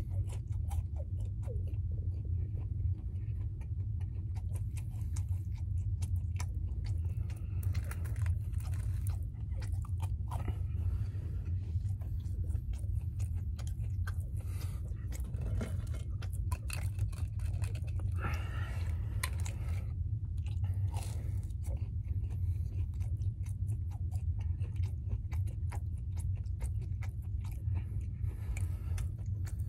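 A person chewing and biting French toast sticks close to the microphone, with many small irregular mouth clicks and crunches over a steady low hum.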